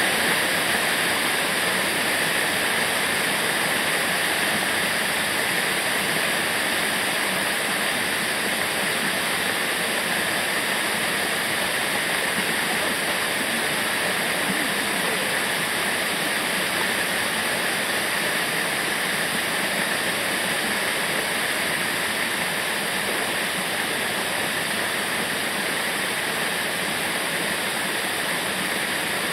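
Waterfall rushing, a steady unbroken roar of falling water.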